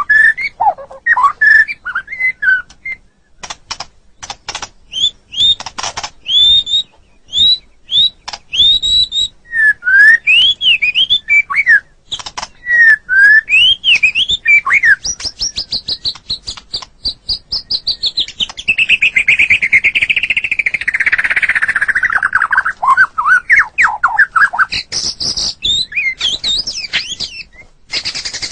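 White-rumped shama singing a loud, varied song: quick slurred whistles and sharp clicking rattles, then a long fast trill that falls in pitch about halfway through, before more whistled phrases.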